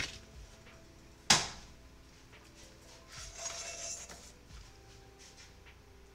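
A single sharp knock about a second in, like a hard object set down on a kitchen surface, then a soft rustle a couple of seconds later, over faint steady tones.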